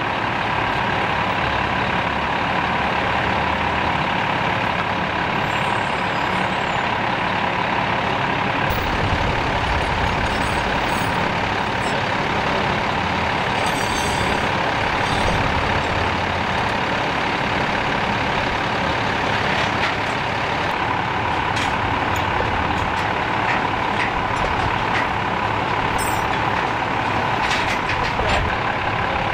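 Heavy diesel truck engine running steadily, a constant low rumble with a steady hum.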